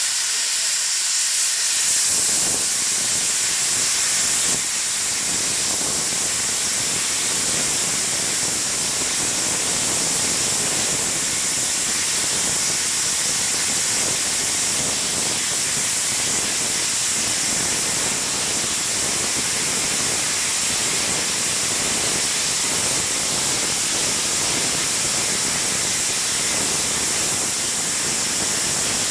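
NSW C36-class steam locomotive 3642 venting steam with a steady, loud hiss. The hiss fills out and grows slightly louder about two seconds in, then holds steady.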